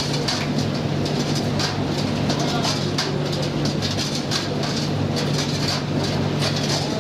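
Commercial gas tumble dryer running with its burner off, the drum turning and the motor and blower giving a steady low hum, with irregular clicks and taps from the load tumbling.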